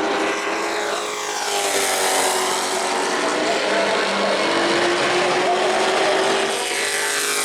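Pro Truck race trucks' engines running at speed around the oval. The engine note sweeps down in pitch as trucks pass about a second in and again near the end.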